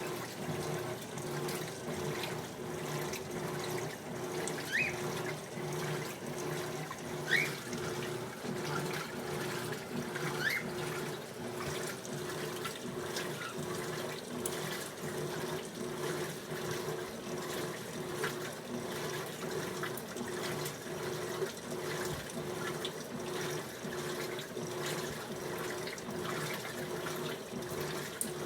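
Electrolux LT15F top-loading washing machine in its rinse cycle: water running and sloshing in the tub over a machine hum that pulses at an even rhythm, with a few short rising squeaks in the first part.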